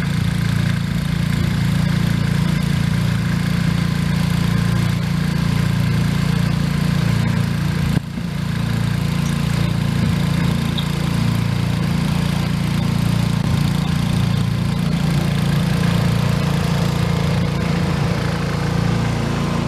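Small single-cylinder garden-tractor engine running steadily at an even speed, with a brief break about eight seconds in.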